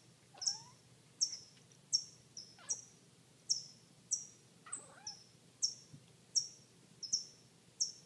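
A small bird giving one sharp, falling chirp over and over at a steady pace, about every three-quarters of a second, scolding a cat that watches it from a window.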